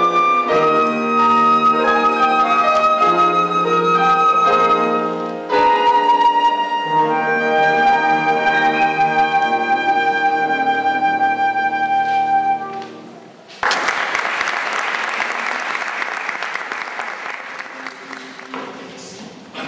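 Concert flute playing a melody over piano accompaniment, ending on a long held note; a little after the music stops, about two-thirds of the way through, audience applause breaks out and slowly fades.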